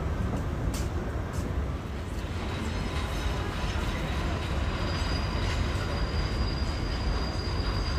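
R188 subway train running in on an elevated curve: a heavy low rumble of wheels on rail, with a thin, steady high wheel squeal coming in about five seconds in. Two sharp clicks sound in the first second and a half.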